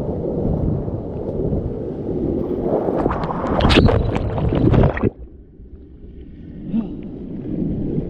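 Whitewater rapid rushing and splashing close around a kayak, getting louder with sharp splashes about three seconds in. Just after five seconds the sound drops suddenly to a muffled low rumble as the microphone goes under water, then builds again near the end as it comes back up.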